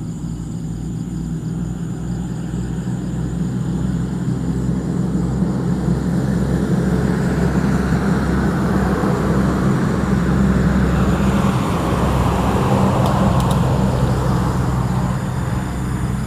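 Steady low engine hum of a motor vehicle running, with road traffic noise that swells and then fades away about midway through.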